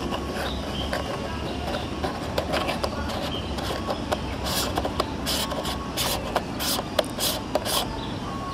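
Handling noise from fingers fitting a UV-IR cut filter over a camera lens: scattered clicks, then about six short rubbing scrapes in the second half, over a steady low rumble.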